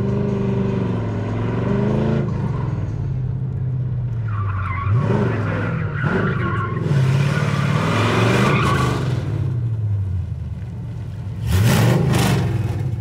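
Drift car's engine revving up and down as it is driven through a cone course, with tyres squealing in bursts from about four seconds in. Near the end the engine revs up loudly as the car passes close.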